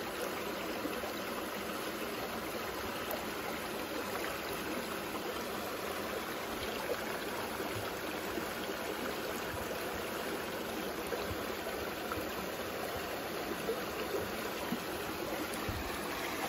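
A small, shallow stream flowing and trickling steadily over rocks and mud, heard close to the water's surface.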